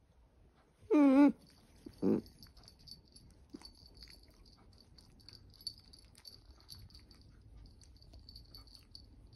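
Long-haired dachshund having her belly rubbed gives a short, wavering whine about a second in and a briefer one about a second later, then faint, high, wheezy breathing carries on.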